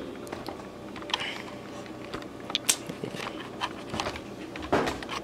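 Irregular light clicks and knocks of a hand-held phone camera being moved and handled, with a short rush of noise near the end.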